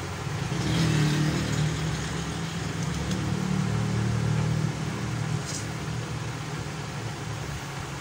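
A low, steady motor hum that swells about half a second in and eases off near five seconds, with a few faint clicks.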